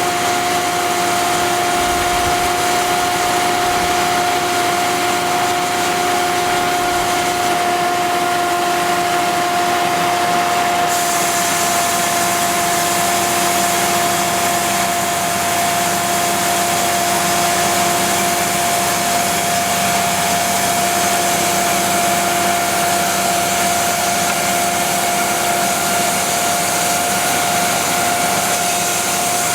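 Cook's AC3662 hydraulic bandsaw sawmill, driven by a 62 hp Perkins diesel, running steadily with a constant high machine whine over a hiss. The hiss gets brighter about eleven seconds in.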